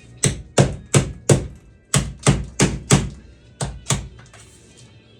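Sharp metallic knocks on a Jeep Wrangler's sheet-metal floor as a patch plate is riveted down, about three a second in runs of four, four and two, each with a short ring.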